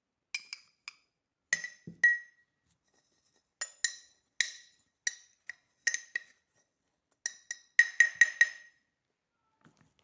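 A spoon knocking against a glass jar: irregular sharp clinks that ring briefly, with a quick run of four near the end.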